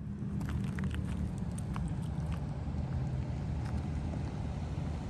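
Steady vehicle running noise, a low engine hum under even road and wind noise, with a few faint light clicks.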